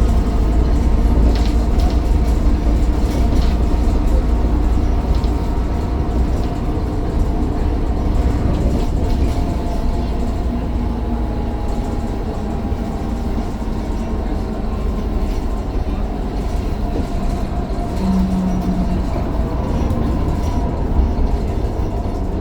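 Mercedes-Benz Citaro bus under way, heard from on board: a deep, steady engine and road rumble with a whine that slowly rises and falls in pitch. A short steady low tone sounds for about a second near the end.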